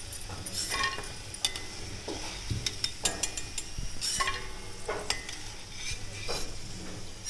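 Hot oil sizzling in a steel kadhai while a slotted steel spoon scrapes and clinks against the pan about ten times, lifting out fried pieces of dough.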